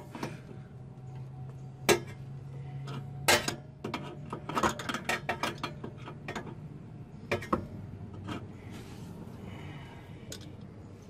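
A metal hand tool clicking and clinking on the rear camber arm adjuster under a Nissan 240SX as it is turned. A few sharp single knocks come early, then a quick run of clicks in the middle and a few more near the end.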